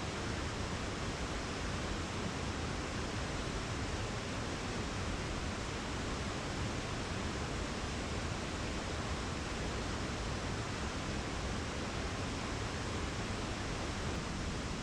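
Waterfall on the West Fork of the Pigeon River pouring down into a pool: a steady, even rush of falling water.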